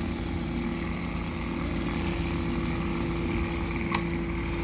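Small petrol engine of a pressure washer running steadily at constant speed, with a steady hum, and a short click about four seconds in.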